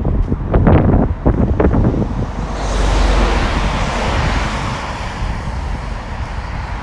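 Wind gusting against the microphone, then a vehicle passing on the wet road: its tyre spray hiss swells about two and a half seconds in and fades away.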